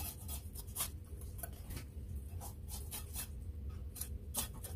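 Kitchen knife cutting a fillet away from a fish's bones on a wooden board, with irregular short scrapes and clicks of the blade, over a low steady hum.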